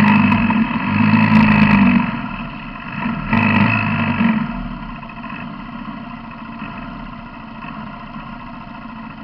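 Quad bike engine running under throttle, surging twice in the first four seconds, then easing off to a quieter, steady idle.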